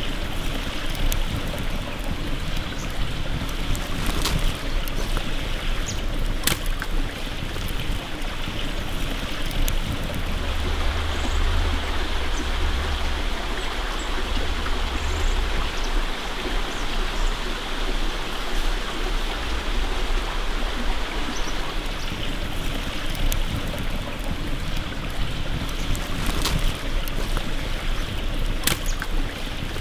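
Forest stream flowing steadily, with a few sharp pops from a wood campfire.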